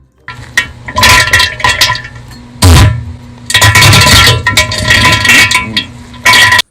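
Comedic diarrhea sound effect: loud wet flatulence noise in several surges, cutting off suddenly near the end.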